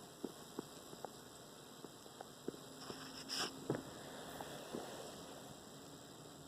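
A sleeping pet snoring softly: one drawn-out snore about three seconds in, over a steady faint electrical hum and a few small clicks.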